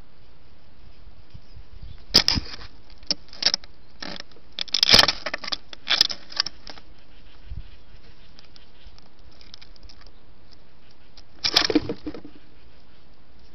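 Greater roadrunner moving right at the camera: several short, sharp bursts of scuffing and flapping in clusters, about two seconds in, around five and six seconds, and again near the end, over a steady hiss.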